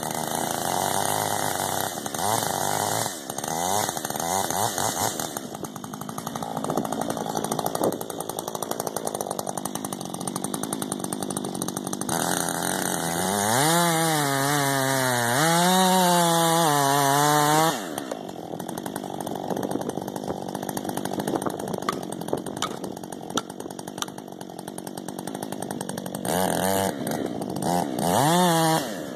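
Husqvarna 562 XP two-stroke chainsaw running at high revs, cutting into a dead ash tree. Its engine note rises and falls under load midway, drops back after that, and revs up hard again near the end.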